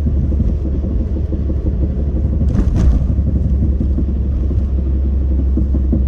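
Steady low road and drivetrain rumble of a Suzuki Swift Sport ZC31S on the move, heard from inside the car. Two short knocks come about two and a half seconds in.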